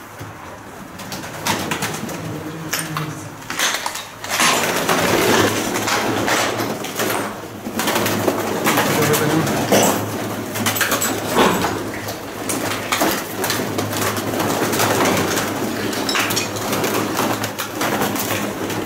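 Flock of feral pigeons cooing, growing louder over the first four seconds or so, with many short sharp clatters throughout.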